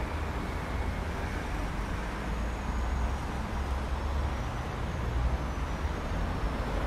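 Street ambience: steady road-traffic noise with a low rumble.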